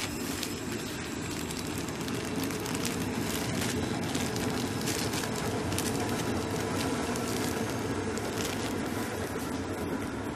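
Clear plastic bag crinkling as fingers press and handle the folded T-shirt inside, many small crackles over a steady low background noise.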